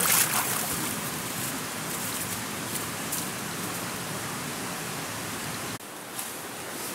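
Steady rushing noise, like running water or rain on leaves, with a short drop about six seconds in.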